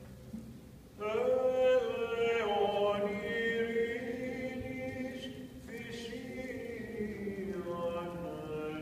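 A man chanting Byzantine chant solo, one sustained, ornamented melodic line that starts about a second in and carries on, sliding and turning between held notes.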